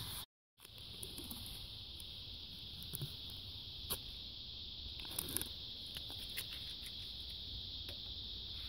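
Faint, steady, high-pitched insect chorus with a few light clicks and rustles of handling scattered through it. The sound cuts out briefly near the start.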